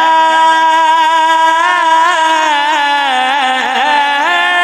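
A man's voice singing a naat unaccompanied into a microphone. He holds one long steady note for about two seconds, then winds through a wavering, ornamented run.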